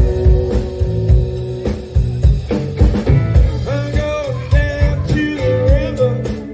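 Live blues band playing: electric guitars and bass over a steady drum-kit beat, with a melody line that bends up and down about halfway through.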